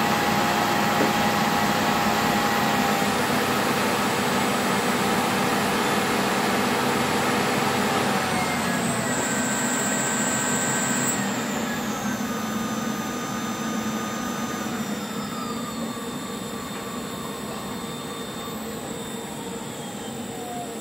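Alternator test bench's drive motor spinning a belt-driven Ford Denso hairpin alternator under heavy electrical load during an automatic power-curve test: a steady machine whine whose tones slide down in pitch in steps and get quieter as the bench lowers the speed from about 4000 rpm.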